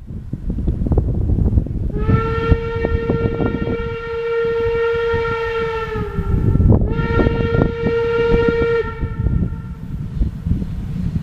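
Steam whistle of German class 52 locomotive 52-8038 sounding two blasts: a long one of about four seconds whose pitch sags slightly as it ends, then a shorter one of about two seconds. Wind rumbles on the microphone under it.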